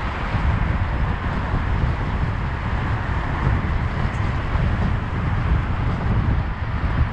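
Steady wind buffeting the microphone of a moving bicycle, with a low, fluttering rumble mixed with road noise.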